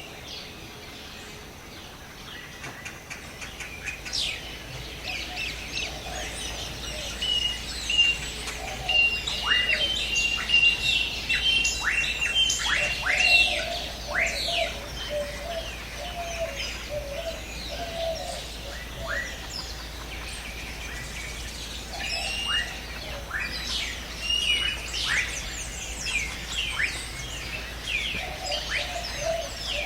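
Several birds chirping and calling in a chorus of many short, falling chirps, busiest from about four seconds in, with a thin held whistle for a few seconds and a lower warbling call coming and going underneath.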